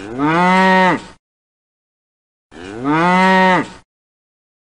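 Cow mooing: two separate calls about a second long each, rising in pitch at the start and dropping off at the end, with dead silence between them.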